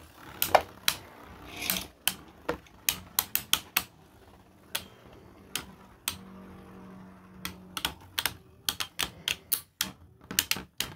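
Two 3D-printed plastic battle tops clashing in a plastic Beyblade stadium: a run of sharp, irregular clacks, some in quick clusters, as they collide with each other and the stadium.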